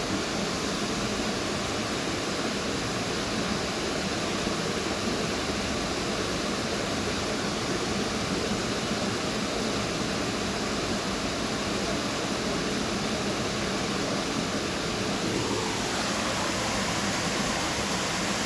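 Waterfall pouring steadily, a constant rush of water. A faint tone slides down in pitch about three-quarters of the way through.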